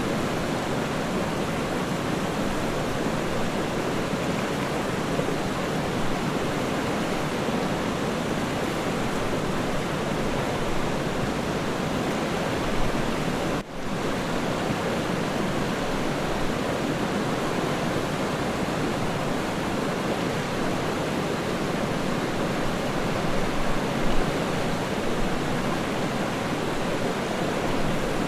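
Waterfall: a steady, even rush of falling water, with a momentary drop in level about halfway through.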